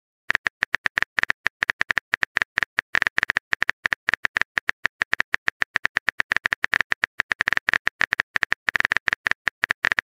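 A rapid, uneven string of short, high clicks, about eight to ten a second, starting about a third of a second in.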